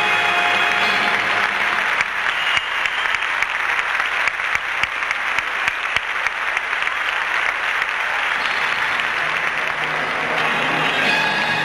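Audience applauding: a dense spatter of clapping. Music plays in the first second, and new music comes in near the end.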